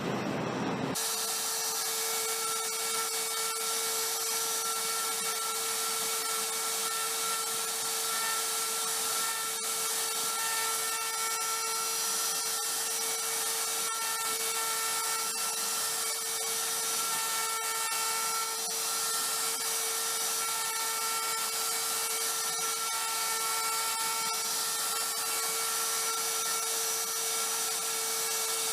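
CNC router spindle running steadily with a constant whine as a 60-degree V-bit carves into a wooden sign blank; the sound starts abruptly about a second in.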